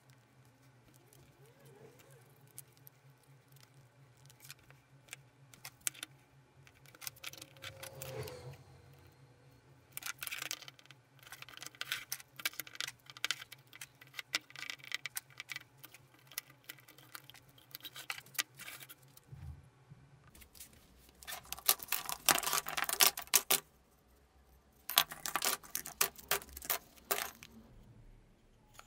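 Small plastic one-handed bar clamps clicking and rattling as they are ratcheted onto stacked handle scales during a glue-up. The clicks come in bursts of rapid clicks, the loudest a little past the middle.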